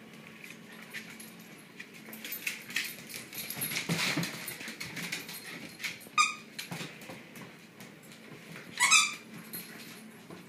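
Shiba Inus playing tug of war, making dog play noises, with two short, loud, high-pitched yelps about six and nine seconds in.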